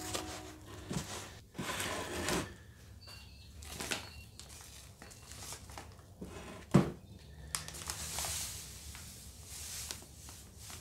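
Dry salt being handled: a gloved hand scooping and rustling coarse salt from a tub, with a sharp knock about seven seconds in. Near the end, salt poured from a bag hisses into a plastic container.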